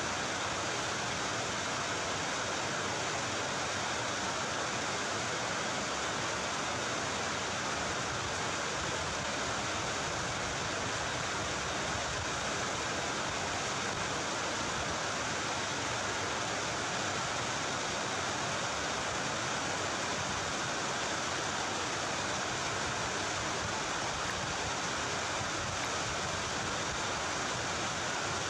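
A steady, even rushing hiss with no breaks or separate sounds in it.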